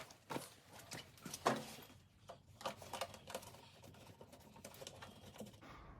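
Faint, irregular clicks and light taps, a few to the second.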